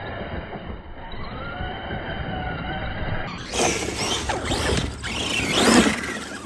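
Arrma Big Rock 6S RC monster truck's brushless electric motor whining, its pitch rising and falling with the throttle as the truck drifts on loose dirt. About three seconds in the sound becomes louder and sharper, with several quick revs up and down, the loudest near the end.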